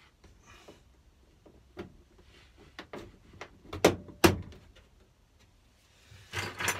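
Plastic interior light fitting being pushed back into a van's roof lining: small clicks and rattles, then two loud sharp snaps about four seconds in as it clips into place. A brief rustle near the end.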